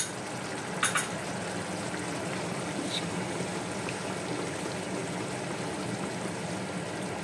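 Chicken curry gravy simmering in a frying pan with a steady bubbling hiss, as a wooden spatula stirs curd through it. One sharp click comes about a second in.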